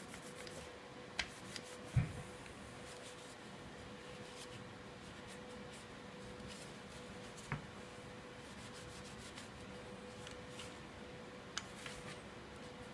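Faint cloth rubbing over a KSC Glock 19 airsoft pistol, wiping excess grease off the outside, with a few light knocks as the pistol is handled.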